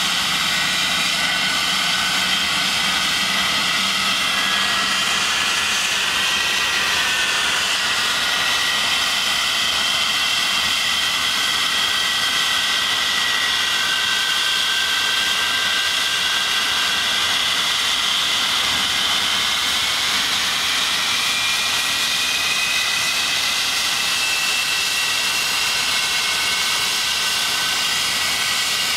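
English Electric Lightning's jet engines running steadily on the ground with the aircraft standing still: a loud, even rush of jet noise with high whining tones that drift slowly in pitch.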